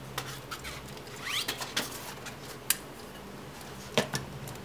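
Handling noise from a Swiftech Apogee Drive II water-block-and-pump unit as it is turned over and set down on a table: scattered sharp clicks and taps, with a short rising squeak about a second in and a louder knock near the end as it is put down.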